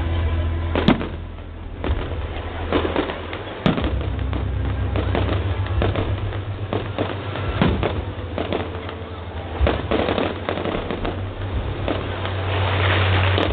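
A fireworks display: a rapid, irregular series of bangs and cracks from shells bursting, with a denser crackle near the end.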